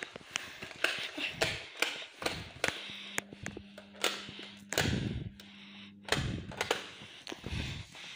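Irregular footsteps on a hard floor with the knocks and clicks of a hand-held phone being moved around. A faint steady hum sets in about three seconds in and stops a few seconds later.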